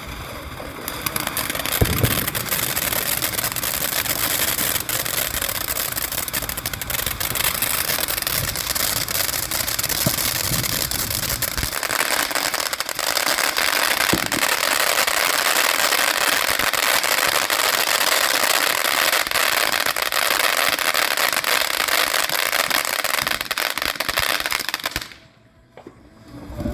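Master of Sparks firework fountain spraying sparks with a steady hiss and dense crackling for over twenty seconds, then cutting off abruptly near the end.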